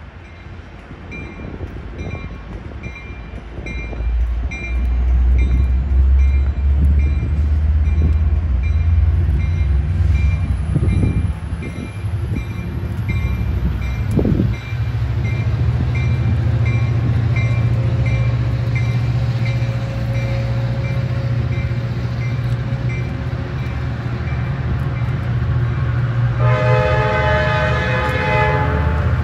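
Sounder commuter train with its EMD F59PHI diesel locomotive running, the engine rumble growing much louder about four seconds in and then holding steady, while a warning bell rings at an even pace throughout. Near the end the train's horn sounds a long chord blast.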